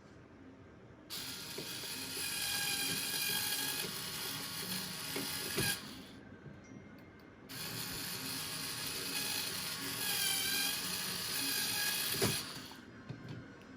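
Electric power drill running in two long bursts of about five seconds each, with a steady motor whine and a ratcheting rattle, separated by a short pause.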